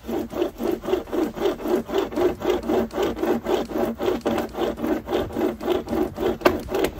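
Manual pocket chain saw with a 63-tooth chain, pulled back and forth by its nylon straps, cutting through a tree branch: a rapid, even run of rasping strokes.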